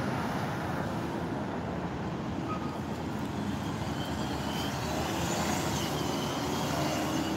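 Street traffic noise with a car engine running and pulling away, its note slowly rising in the second half.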